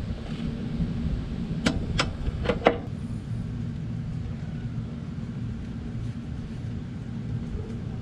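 Ratchet and socket clinking against the front strut's bolt as they come off: four short sharp metallic clicks about two seconds in, over a steady low rumble.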